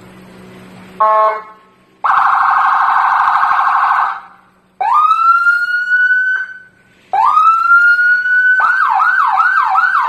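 Police car electronic siren switching through its tones: a short horn-like blast about a second in, then a fast warble, then two wails that rise and hold, and finally a rapid yelp of repeated up-sweeps near the end.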